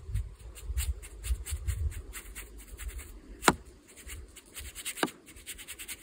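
Round watercolor brush dragged on its side across cold-press watercolor paper in short, rapid scratchy strokes, dry-brushing a rough texture. A sharp click comes about three and a half seconds in, and a smaller one about five seconds in.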